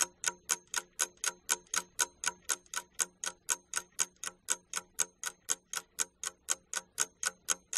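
Ticking-clock sound effect, an even, fast tick of about four ticks a second, marking a timed pause for thinking over questions.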